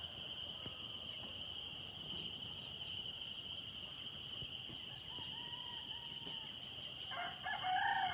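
Rooster crowing in the pre-dawn dark over a steady, high-pitched chorus of night insects. A faint crow comes around the middle and a louder one near the end.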